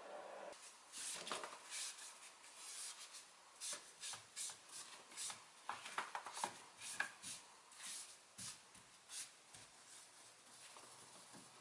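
A series of short, soft rubbing or brushing strokes, irregular at about one or two a second, that die away near the end.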